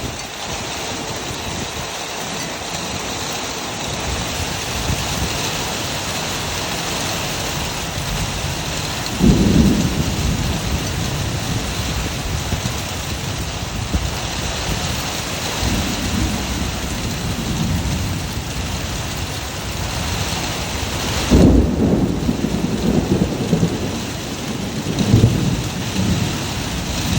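Heavy hurricane rain falling steadily, with low rumbling swells coming and going four times.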